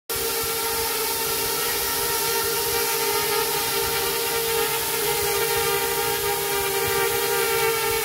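Small FPV quadcopter's brushless motors and propellers spinning steadily at idle while it sits armed on the ground, giving an even whine with a hiss of prop wash.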